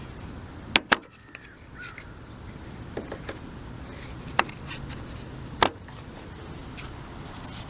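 Sharp plastic clicks and knocks from the twist-off air filter cover on a Tecumseh mower engine being turned and pulled off its pleated paper element, then refitted. Two clicks come close together about a second in, then several more scattered through the rest.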